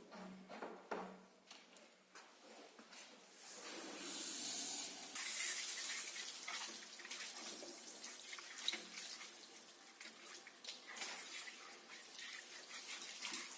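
Water running and splashing over a Russian hunting spaniel being washed in a grooming tub. It starts about three and a half seconds in after a quiet stretch and keeps going, rising and falling in strength.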